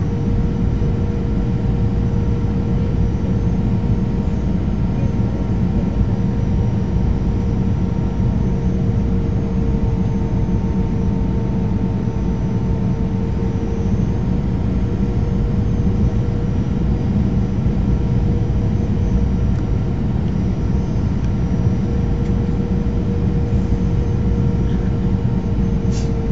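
Cabin noise of a Boeing 737-500 heard beside its CFM56-3 turbofan during the descent to land: a steady drone of engine and rushing air with a constant hum running through it. One brief click near the end.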